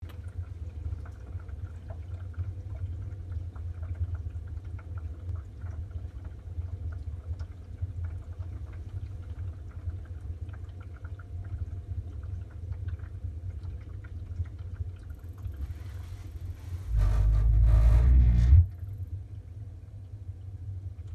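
Worcester Bosch 29CDI condensing combi boiler with a steady low hum, faint crackle and water sounds. Its condensate is not draining away because the soakaway is blocked in clay, the cause of its EA fault. Near the end there is a loud low rumble lasting about a second and a half.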